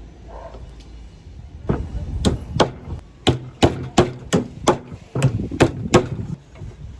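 Hammer blows on wood: about ten sharp strikes in a steady rhythm of roughly three a second, starting about two seconds in.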